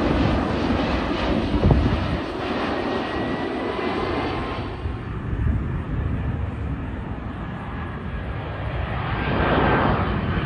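Jet airliners passing low overhead on landing approach, first a Boeing 767 freighter, then, after a cut about halfway through, a Boeing 737. The jet engines give a steady roar with a faint whine sliding in pitch, and the roar swells louder near the end as the 737 comes over.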